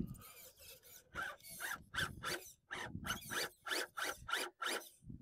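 RC rock crawler's electric motor and drivetrain whirring in a quick series of short bursts, about four a second, as the throttle is feathered to work the truck over a rock ledge.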